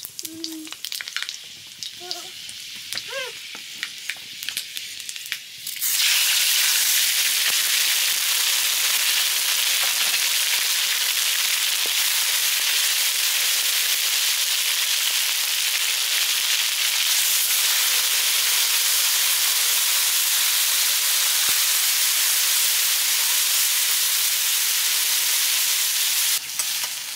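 Food frying in hot oil in a pan. A loud, steady sizzle starts suddenly about six seconds in and holds until near the end, when stirring clicks come in.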